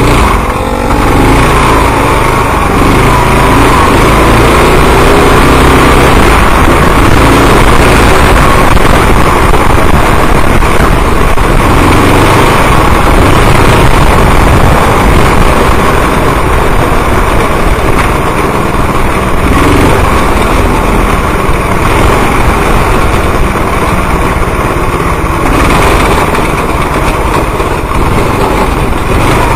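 Go-kart's small engine running steadily under way, loud and close, with no let-up.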